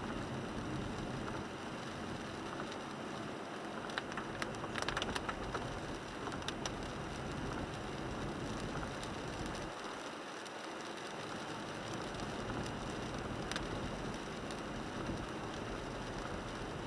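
Cabin noise of a 1998 Toyota 4Runner driving in rain: steady tyre and road noise on wet pavement. Scattered taps of raindrops on the windshield come in a quick cluster about four seconds in, with a few more later.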